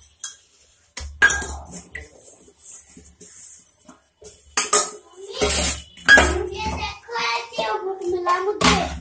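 Stainless steel dishes and bowls clattering and clinking against each other and the steel sink as they are hand-washed, in a string of irregular sharp knocks.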